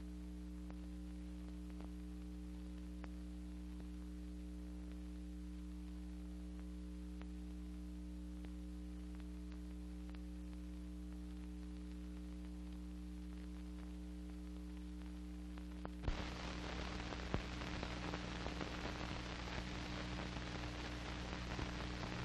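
Steady low hum with faint static and scattered ticks, the noise of an old film soundtrack with no sound on it. About 16 seconds in, a louder hiss with crackles comes in.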